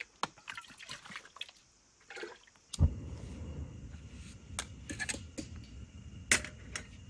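Thick canned soup poured from a can into a metal cooking pot, with small metal clinks. About three seconds in a steady low rush starts, with scattered clinks and knocks as the pot is handled.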